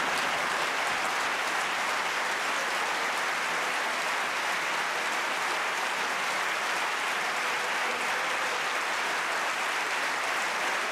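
Large theatre audience applauding, a dense, even clapping that holds steady throughout.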